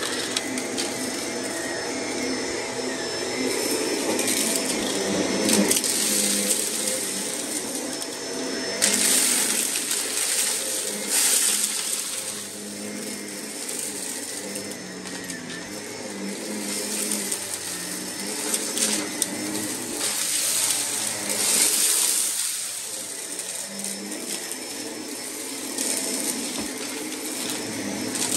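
Vacuum cleaner running steadily with a motor hum, sucking up dirt. Louder rushes of hiss and grit come and go every couple of seconds as it pulls in debris.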